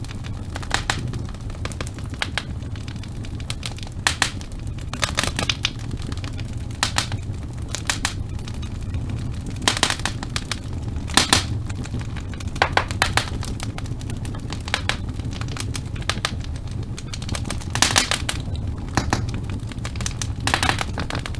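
Wood fire in a fireplace crackling: irregular sharp pops and snaps, some in quick clusters, over a steady low rumble of burning.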